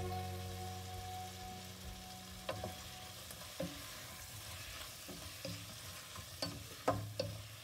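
Slotted wooden spatula stirring chopped tomatoes, onions and peppers frying in a ceramic-coated pot: a faint sizzle with scattered taps and scrapes against the pot, coming closer together near the end.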